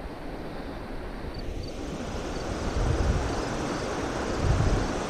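Steady rushing wind noise buffeting the action camera's microphone, building slightly in loudness, with faint high double chirps of insects now and then.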